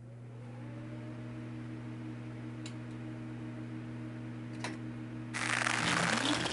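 A low, steady humming drone of a few held tones. About five seconds in, a loud rushing whoosh swells over it.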